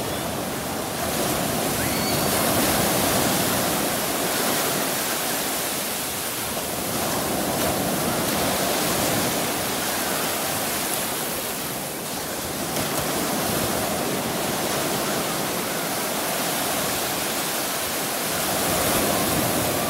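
Small ocean waves breaking and washing over the shallows: a steady rushing surf noise that swells a little every five or six seconds.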